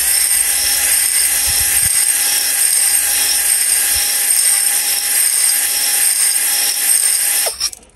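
Cordless drill spinning a spring-loaded hone inside a 250cc ATV cylinder, its stones grinding on the glazed bore to leave a cross-hatch. It runs steadily and stops suddenly near the end.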